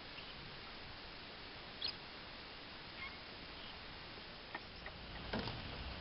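Quiet outdoor background: a steady faint hiss with a few short chirps and clicks scattered through it, the loudest about two seconds in and again near the end.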